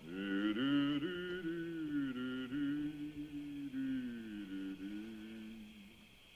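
Slow, sustained film-score music: a gliding melody over held lower notes, fading away about a second before the end.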